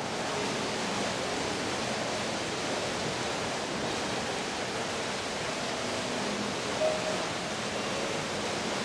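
Steady rushing of falling water, an even hiss with no breaks.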